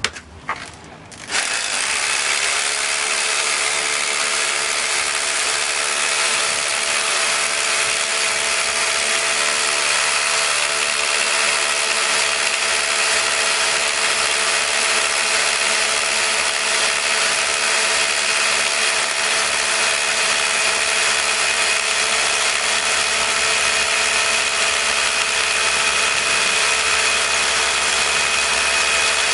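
Two rotary hammers, a Makita HR2810 and a Metabo UHE 2850 Multi, hammer-drilling into a concrete block at the same time. They start about a second in and run steadily under load, with a steady high whine over the noise of the drilling.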